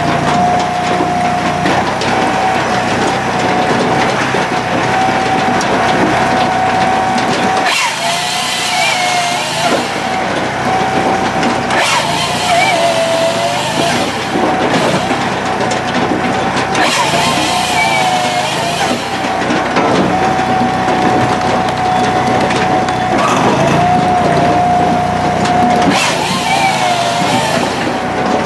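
Firewood processor running: its engine-driven hydraulic system hums steadily with a constant tone. About four times, for roughly two seconds each, the hydraulic piston-motor saw cuts through a log with a loud hissing rasp, and the hum dips and wobbles in pitch under the load.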